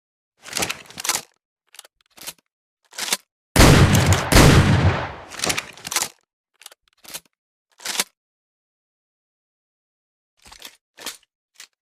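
Double-barrel shotgun: one loud blast about three and a half seconds in, with a long fading rumble. Short sharp clicks and clacks of the gun's action come before and after it.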